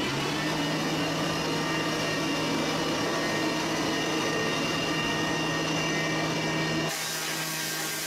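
Electric sawmill log-processing machinery running with a steady motor hum and a high whine. About seven seconds in the low rumble drops away and a harsh hiss comes in as the green cutter head works into the log.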